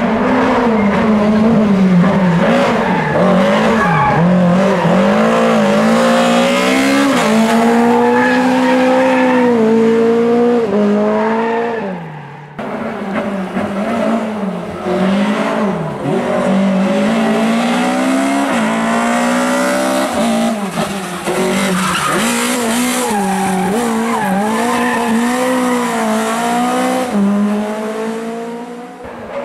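Lada VFTS rally car's four-cylinder engine revving hard on a hill climb, heard approaching: the pitch repeatedly climbs and drops as the driver shifts gears and lifts for corners. The sound cuts off suddenly about twelve seconds in, then picks up again revving the same way, loudest near the end.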